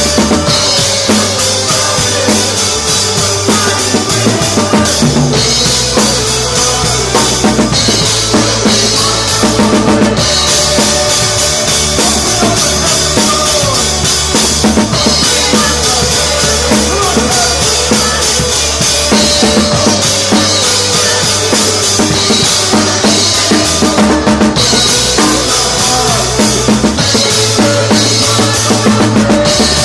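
Live church worship band playing a song, with a drum kit keeping a steady beat of bass drum and snare under the other instruments.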